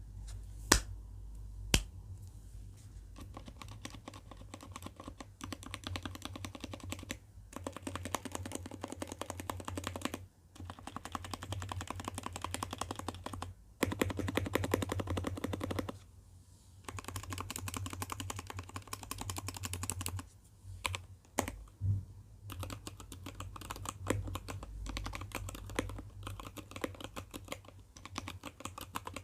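Typing on an ABKO ADK05 mechanical keyboard fitted with linear Kailh Box Red switches and freshly lubricated stabilizers. The keystrokes come in fast runs broken by short pauses, with two sharp, louder clacks about a second in.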